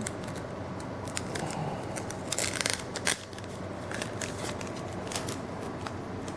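Trading cards and a booster pack being handled: small clicks and rustles as the cards are flipped, with a louder rustle lasting about half a second between two and three seconds in, then a sharp click.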